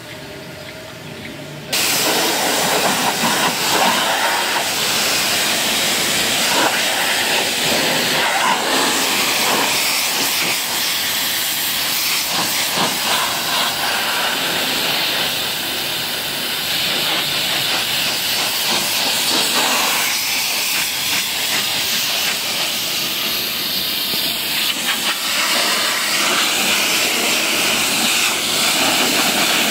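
Pressure washer lance spraying water onto a car's bodywork: a loud, steady hiss of spray that starts abruptly about two seconds in.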